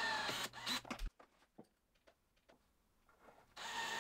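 Cordless drill driving wood screws into a pine frame, a whirring motor run that cuts off suddenly about a second in. Near silence with a few faint ticks follows, and the whirring starts again about half a second before the end.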